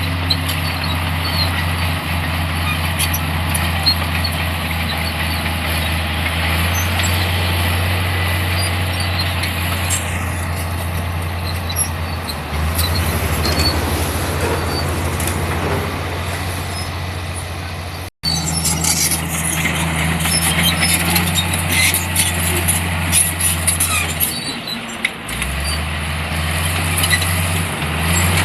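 Diesel engine of a heavy earth-moving machine running steadily as it works, with metallic clanks and rattles over the engine hum. The sound cuts out for an instant about two-thirds through, and the engine note dips briefly near the end.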